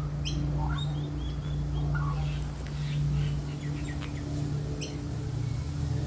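Australian magpies warbling in scattered short, fluty phrases, over a steady low hum. Two sharp ticks come, one just after the start and one near the end.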